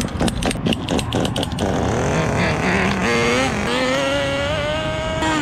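Kyosho FW-06 nitro RC car's .15-size glow engine firing with irregular pops for its first second or so, then running at high revs with a rising whine as the car accelerates away.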